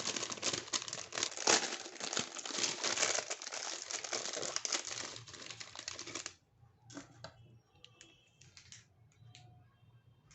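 Packaging being crinkled and handled for about six seconds, a dense crackling, followed by a few scattered lighter clicks and taps.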